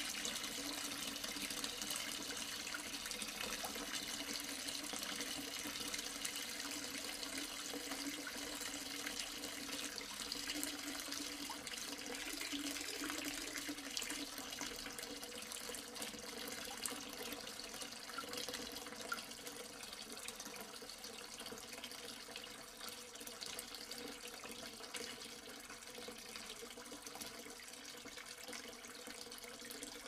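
Water running from a tap into a sink as the sink fills: a steady rush of water that grows gradually quieter.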